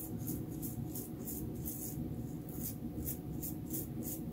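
Faint background music with a soft, steady shaker-like beat, about three beats a second, over a low hum.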